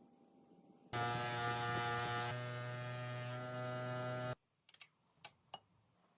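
A small electric motor, likely a power tool, runs at a steady pitch with a low hum and a hiss above. It starts suddenly about a second in and cuts off suddenly about three seconds later, followed by a few faint clicks.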